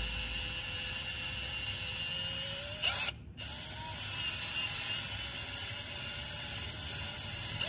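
Cordless drill running slowly, its 1/4-inch bit drilling out a stripped bolt hole in a cylinder head to take a HeliCoil thread insert. There is a brief louder surge about three seconds in, then a short break before the drilling runs on.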